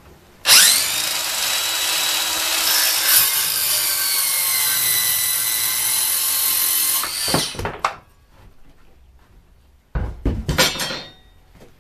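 Cordless circular saw starting with a whine and crosscutting a 2x4, its pitch sagging a little under load midway, then spinning down after about seven seconds. A couple of heavy clunks near the end.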